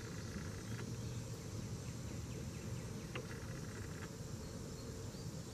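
Steady background chorus of insects buzzing, with a single faint click about three seconds in.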